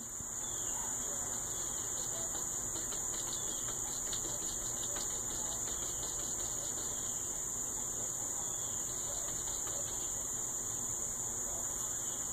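A steady high-pitched drone, with faint light taps of a cat's paws against window glass a few seconds in.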